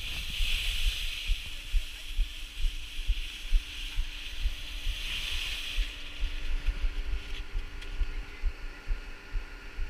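Skis sliding and scraping over firm snow, a steady hiss, with wind buffeting the action camera's microphone in low gusty thumps. The ski hiss fades about six seconds in as the skier slows, leaving the wind rumble and a faint steady hum.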